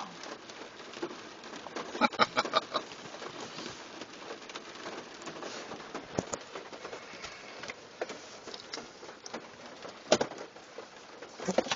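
A bird tapping its beak on window glass: a quick run of about half a dozen taps about two seconds in, then single taps around six and ten seconds, and a couple more near the end.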